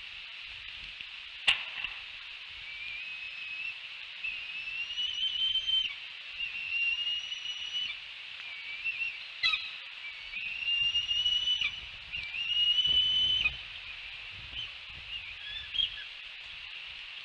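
Bald eaglet begging for food: a run of about six long, thin whistled calls, each slightly rising in pitch, then a few short ones near the end. A sharp click about a second and a half in and another near the middle.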